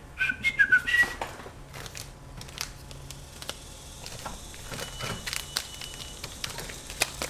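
Plastic lure packaging crinkling and clicking as packages are handled and taken off a pegboard hook, with a few short high squeaks in the first second.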